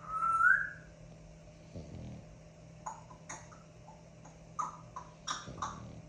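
Pet bird giving one loud whistle that rises in pitch, then a string of short sharp chirps and clicks in the second half. A short low snore from a King Charles spaniel comes about two seconds in.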